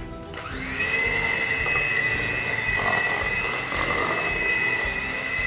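Handheld electric mixer switched on, its motor whine rising quickly and then holding at a steady high pitch as the beaters whip ube cake batter in a stainless steel bowl.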